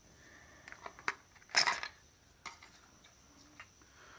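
Light clicks and clinks of hard electronic scrap parts being handled, with one louder short noisy burst about a second and a half in.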